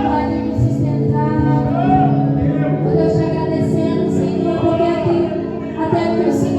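Worship music: a praise band playing sustained chords with bass and drums while voices sing.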